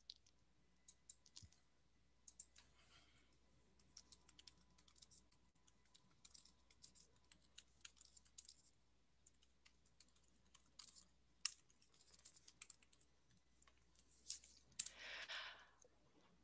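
Faint computer keyboard typing: scattered, irregular soft key clicks over near silence. A short burst of noise comes near the end.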